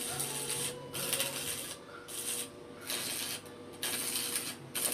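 Arc welding on a steel frame: the arc crackles steadily, stopping and restarting about five times in short runs.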